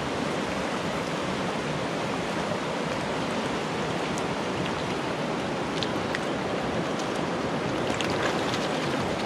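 Fast-flowing river rushing over rocks and riffles: a steady, even rush of water.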